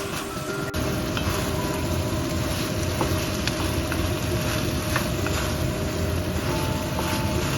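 Food sizzling as it fries in a pan, with faint scattered ticks over a steady low rumble.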